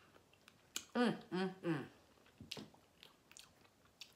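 A person eating barbecue, with wet chewing and small sharp mouth clicks. About a second in comes a brief three-part murmured vocal sound, and near the end a bite into the meat.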